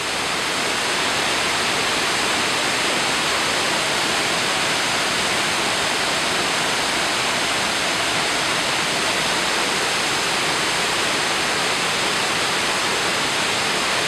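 Pangal Waterfall and the rapids of its mountain river: a steady, even rush of falling and tumbling water.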